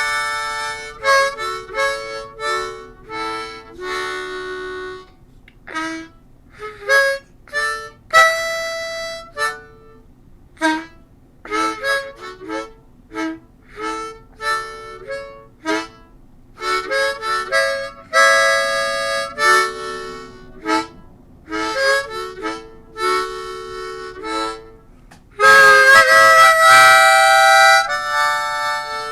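Solo blues harmonica played unaccompanied: short phrases of single notes and chords with brief pauses between them, then a loud chord held for about three seconds near the end.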